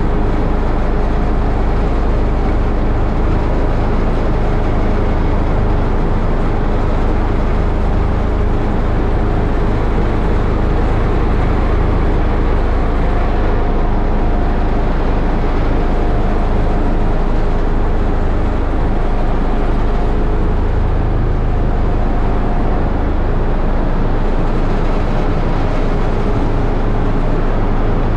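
Small ride-on roller compactor's engine running steadily as the machine drives along, with a heavy low rumble that eases and returns now and then.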